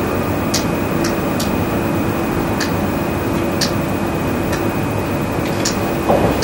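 Steady hum and hiss of room noise with a faint high tone, broken by several light ticks at uneven intervals.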